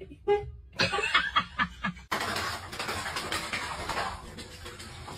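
A person laughing in short bursts. About two seconds in, this gives way suddenly to a steady rustling, crackling noise.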